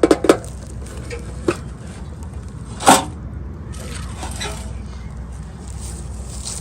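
Small plastic toy packaging being handled and opened: a quick run of sharp clicks and crackles at the start, then a single louder snap about three seconds in, over a low steady hum.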